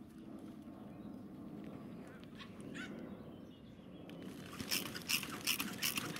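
Plastic bin bag rustling and crackling as it is handled inside a metal waste bin, with a run of loud, sharp crinkles in the last two seconds as the bag is pulled.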